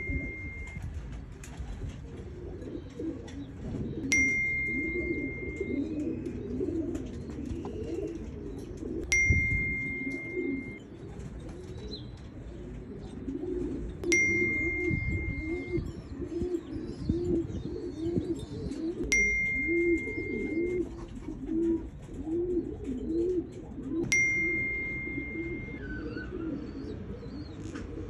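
Pigeons cooing, with short low coos in repeated runs that come about two a second in the middle stretch. A high ding rings out about every five seconds.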